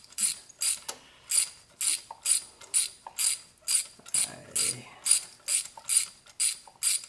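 Hand ratchet with a spark-plug socket on an extension clicking in steady back-and-forth strokes, about two a second, as it backs out spark plugs.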